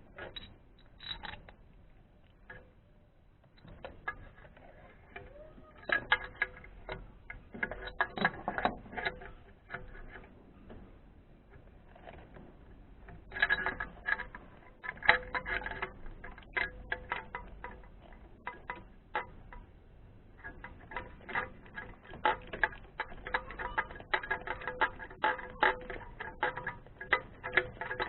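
Ratchet wrench clicking in irregular bursts, with scattered metal tool clicks, while working the spark plugs.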